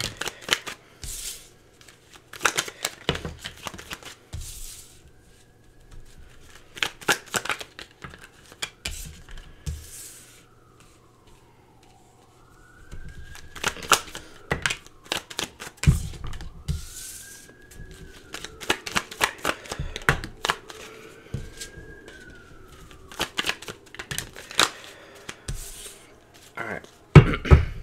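A deck of tarot cards being shuffled by hand and dealt onto a table: clusters of crisp card snaps and riffling clicks with short pauses between them.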